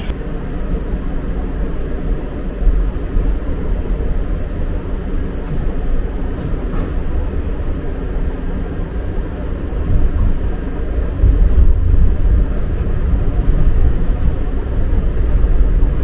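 A moving vehicle's steady low rumble, growing louder about ten seconds in.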